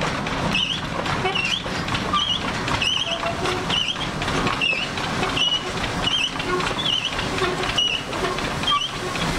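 Freight wagons rolling slowly past with a steady rumble, and a short high squeak repeating about twice a second.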